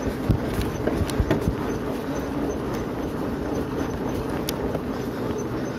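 Urban Terrain Beast fat bike ridden hard along a road, heard from a phone in the rider's jacket pocket. There is a steady rumble of the wide tyres and the moving bike with fabric rustle, and a few knocks in the first second and a half.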